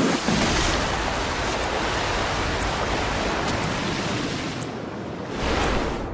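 Glacial meltwater river rushing: a steady roar of water, with the hiss briefly thinning about five seconds in.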